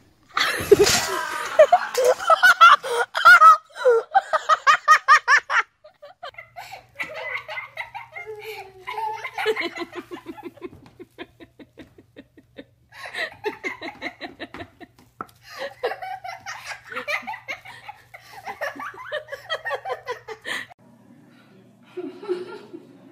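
A heavy thump about a second in, then loud, hearty laughter in rapid bursts, which comes back in several stretches with short pauses between them.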